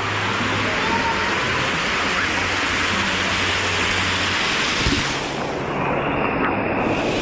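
Steady rush of falling, splashing water, an even hiss with a faint low hum under it.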